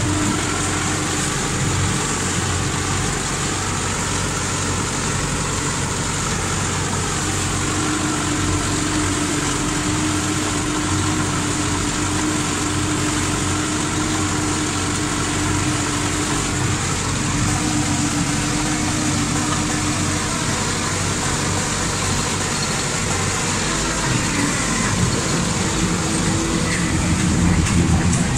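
Tractor engine running steadily under load, pulling a mounted reversible plough through the soil.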